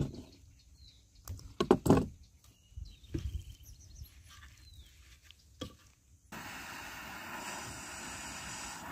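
Knife and hands knocking and clicking on a wooden board while fish is cut into pieces, the loudest knocks just before two seconds in. About six seconds in, the sound changes suddenly to a steady rushing hiss.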